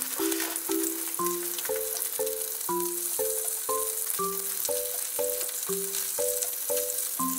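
White fish fillets shallow-frying in hot oil in a frying pan, a steady sizzle throughout. Background music of short chords, about two a second, plays underneath.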